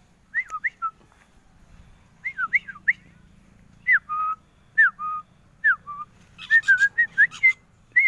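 A person whistling short notes, most sliding down and then holding a short flat tone, in groups of two or three with pauses between, breathier and faster near the end.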